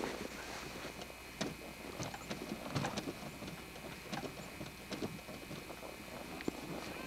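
Scattered light knocks and clicks with rustling, from hands handling the metal rear bumper and grab bar of an Arctic Cat Puma snowmobile.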